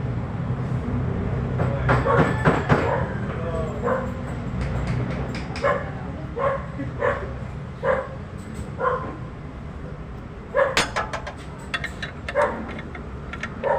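A dog barking repeatedly in short single barks, about one a second at its busiest, with a few sharp clicks around two seconds in and again near the end.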